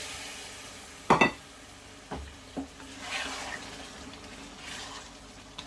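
A spoon stirring and scraping a curry base in a frying pan while it sizzles. The spoon knocks sharply against the pan about a second in, then taps lightly twice.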